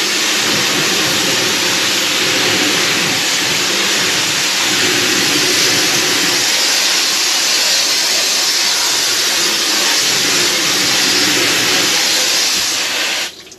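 Garden hose spray nozzle sending a steady, hissing spray of water over a vinyl boat seat to rinse it; the spray shuts off suddenly near the end.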